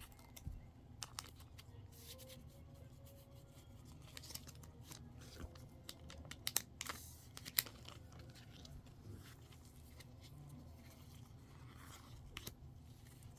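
Faint tearing and crinkling of a foil Pokémon card booster pack wrapper being opened, with scattered light ticks and rustles of the cards being handled.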